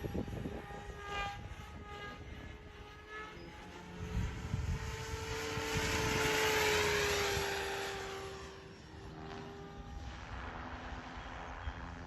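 SAB Goblin 700 Raw electric RC helicopter in flight, with a steady whine from its motor and rotors. The sound swells as the helicopter passes close about six to seven seconds in, then fades again.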